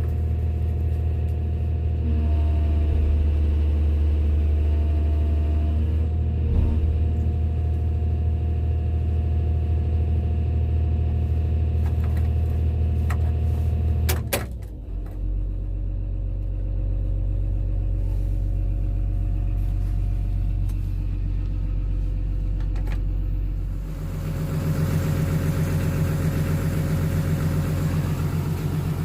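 Sunward excavator's diesel engine running steadily; its speed drops about halfway through, then rises and gets louder near the end, as with the throttle being changed.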